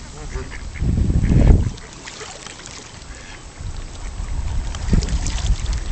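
Wind buffeting the microphone in gusts, a low rumble that is loudest for just under a second about a second in.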